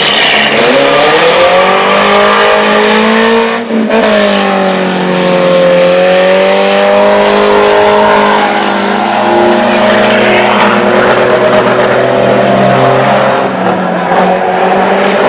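Race car engines running at speed, the loudest one rising in pitch, cutting out sharply for an instant about four seconds in, then falling and climbing again as it drives on.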